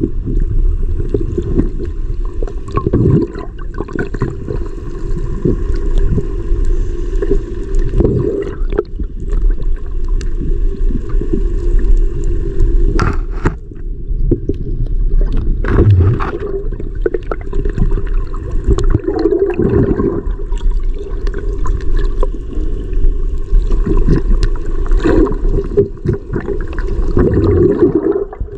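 Muffled underwater rushing and rumble heard through a submerged camera, with a few brief knocks along the way.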